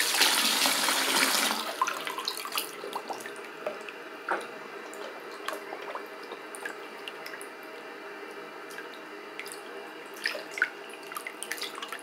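Water running from a sink tap into a full basin, stopping about a second and a half in; then small splashes, sloshing and drips as a shark hand puppet is moved through the water, with a few louder splashes near the end.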